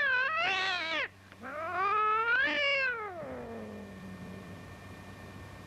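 Angry black-and-white cat yowling while being held: two long, wavering calls. The first ends about a second in. The second rises and then slides down into a low, drawn-out moan that trails off.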